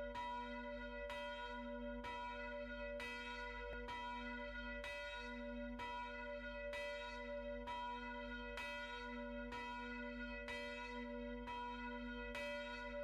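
Church bell swinging in its belfry and ringing, the clapper striking about once a second, with the bell's tone ringing on between strokes.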